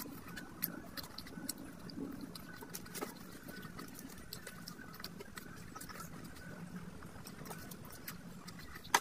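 Close-miked eating sounds: chewing a mouthful of rice and curry, with many small wet mouth clicks and smacks scattered throughout, and fingers squishing rice and curry together by hand.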